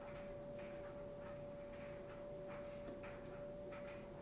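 Faint steady hum on a single unchanging pitch, with soft light ticks and rustles scattered over it.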